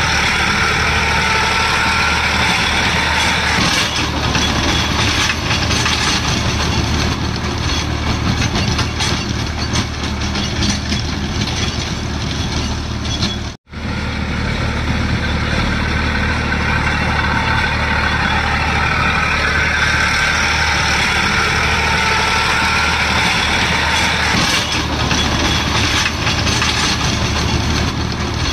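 Farm tractor's diesel engine running steadily while working a rotary tiller through the soil. The sound cuts out for an instant about halfway through.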